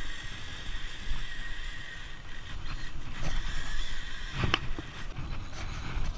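Wind buffeting the microphone over sea surf washing against rocks, with rustling from handling and movement and a sharp knock about four and a half seconds in.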